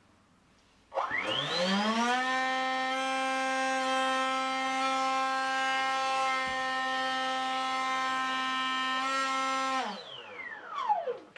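Brushless-motor electric ducted fan on a model hovercraft, driven from a servo tester. It spools up with a rising whine about a second in, runs at a steady high whine, then winds down with a falling pitch near the end, with a short knock as it slows.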